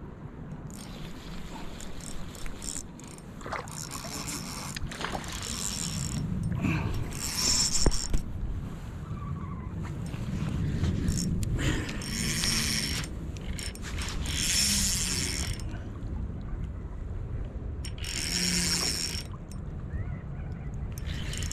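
Spinning reel (Okuma Epixor XT 20) being wound in about six bursts of a second or two each, its gears whirring, over steady low background noise.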